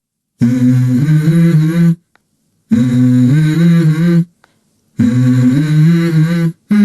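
A low hummed vocal phrase, the same short melody of a few stepped notes, repeated three times with short silences between, like a looped music intro.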